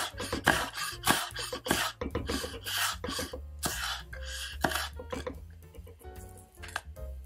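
Large kitchen knife slicing through an onion and striking a wooden cutting board, a crisp stroke about twice a second that thins out after about five seconds. Soft background music plays underneath.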